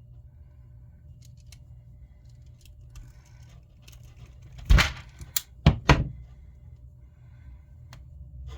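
Close handling noise as wires, tape and a knife are worked by hand: a quick run of four sharp clicks and knocks about five seconds in, with faint ticks and rustles around them over a low steady hum.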